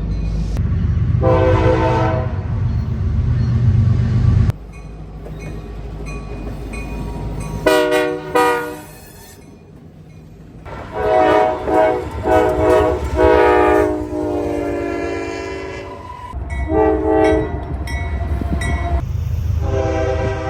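Locomotive air horns sounded in a horn show: a series of blasts, some long and some short in quick succession, over the low rumble of the train. The sound changes abruptly near 4.5 and 7.7 seconds in, where one clip cuts to the next.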